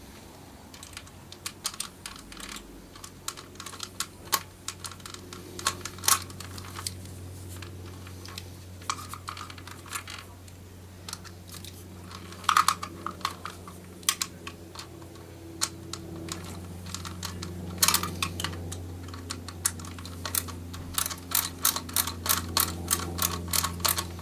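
Scattered sharp clicks and taps of a screwdriver and hard plastic trim parts being handled on a Toyota Camry interior door panel. Over the last few seconds they turn into a quick, fairly even run of clicks as Phillips screws are driven into the plastic. A low steady hum runs underneath.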